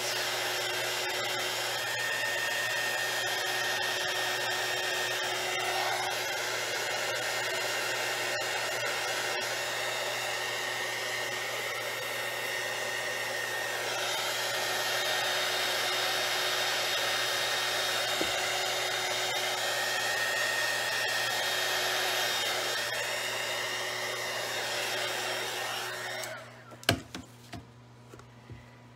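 Handheld electric hot-air blower running steadily, its whine drifting up and down a little, heating the wet resin to spread it over the table top. It switches off near the end, followed by a few light knocks.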